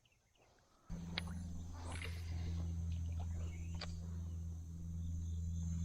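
Insects trilling steadily, with a steady low hum underneath that comes in about a second in, and a couple of light clicks.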